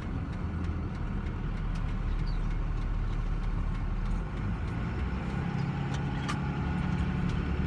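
Pickup truck being driven, heard from inside the cab: a steady low rumble of engine and road noise, with a slight change in the engine note about four to five seconds in.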